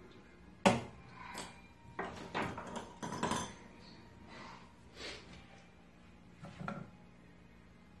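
Knocks and clinks of a ceramic coffee cup and small barista tools being handled on the counter: one sharp knock about a second in, a quick run of knocks in the middle, then a couple of fainter ones.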